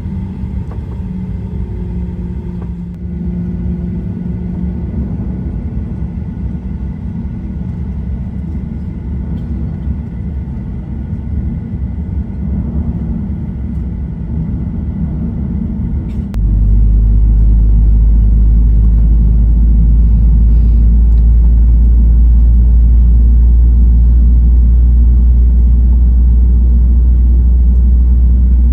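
Boeing 737-800's CFM56 jet engines heard from inside the cabin: a steady rumble as the aircraft moves on the ground, then, a little past halfway, a click and a sudden jump to a much louder, deeper steady rumble as the engines run at takeoff power for the takeoff roll.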